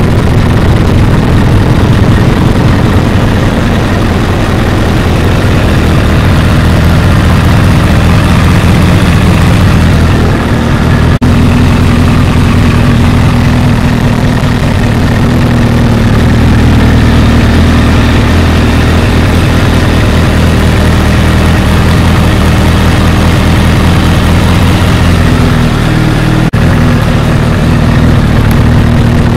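2014 Honda CBR1000RR's inline-four engine idling steadily through a TSR slip-on muffler, with no revving. The recording is loud enough to clip and distort.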